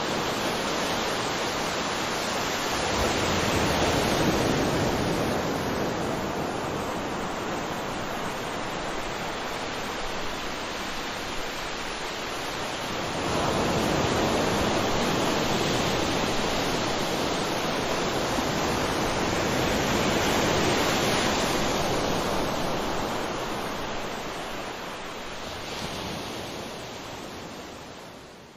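Ocean surf: waves breaking and washing ashore as a steady rush. It swells louder twice, then fades out near the end.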